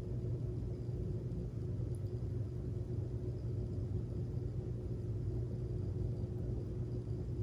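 Steady low hum with a faint constant tone above it: background room noise, unchanging between spoken phrases.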